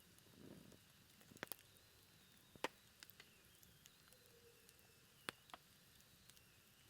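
Low campfire burning down to embers: a quiet hiss broken by a handful of sharp crackles and pops, the loudest about two and a half and five seconds in, with a faint thin whistle.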